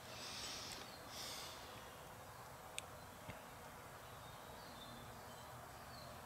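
Quiet workshop room tone, with two soft hisses in the first second and a half and a single light click a little under three seconds in.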